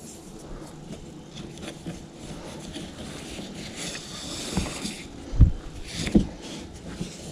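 Cord rustling and scraping as it is wrapped around the kayak rudder's pulley by hand, with two dull thumps a little after five and six seconds in.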